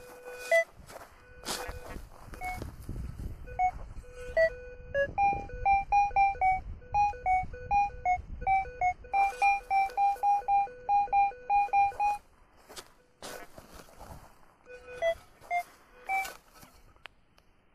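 Berkut 5 metal detector beeping over a buried target, short beeps switching between a lower and a higher tone, the target one the detectorist suspects may be iron. The beeps come fastest, about three a second, from about five to twelve seconds in, and scattered knocks from digging with a shovel come between them.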